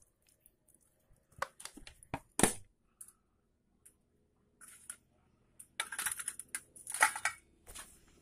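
Scattered small clicks and knocks from handling motorcycle carburetor parts during cleaning, with a sharper knock about two and a half seconds in and a denser run of scraping and rattling near the end.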